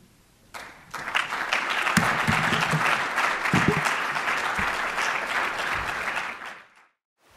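Audience applauding: the clapping starts about half a second in, swells at about a second, and fades out near the end.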